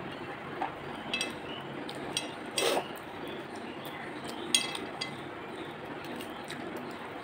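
A few light clinks and taps on a plate as fingers pick at fried fish and rice while eating by hand. Two of the clinks ring briefly, and the sharpest comes about four and a half seconds in.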